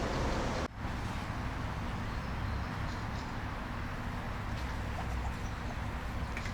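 Outdoor ambience: a steady noisy background with a low rumble and a few faint bird chirps. The sound drops out briefly under a second in.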